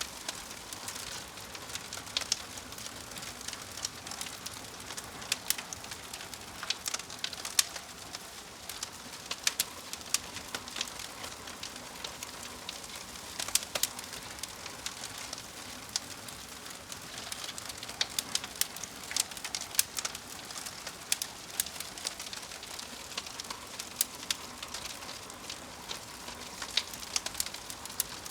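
Wood fire burning, with a steady soft hiss and frequent irregular sharp crackles and pops.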